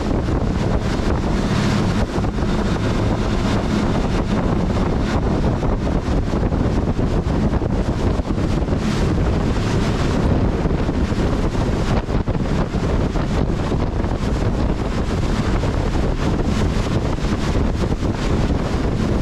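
Heavy wind buffeting the microphone over rushing water and spray from a boat running fast across open sea, with a steady engine hum underneath.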